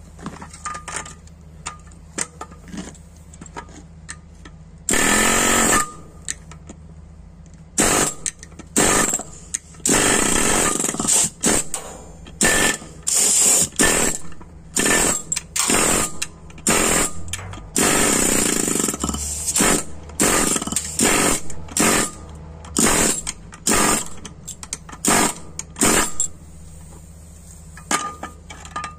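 Pneumatic air chisel hammering out the rivets that hold the lining on a drum brake shoe, running in many short bursts with brief pauses between. The first few seconds hold only a few light knocks before the chisel starts about five seconds in.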